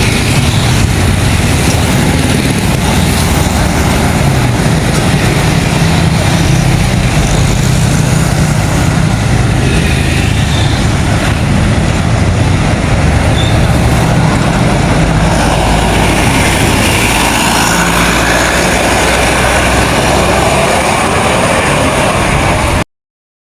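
Bus engine and road noise, loud and steady with a heavy low rumble; it cuts off suddenly near the end.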